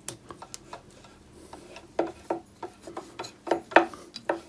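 Irregular light metallic clicks and knocks from hand and tool work on a Myford ML7 lathe headstock, as a bearing cap screw is tightened and the spindle is turned by hand in its white-metal bearings to feel for play.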